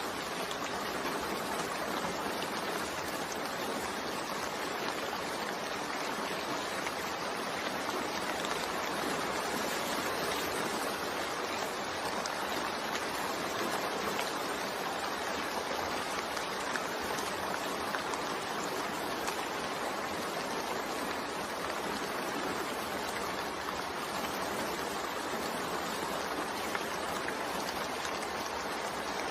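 Steady rain: an even, unbroken hiss of falling rain with no distinct drops or thunder.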